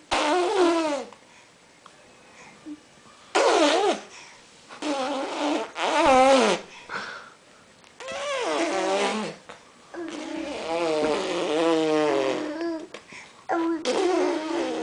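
A baby girl babbling and squealing in about seven short, high-pitched vocal bursts, with one longer warbling vocal sound starting about ten seconds in.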